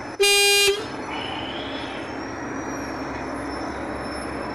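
A vehicle horn gives one short beep, about half a second long and the loudest sound, just after the start, over steady highway traffic noise.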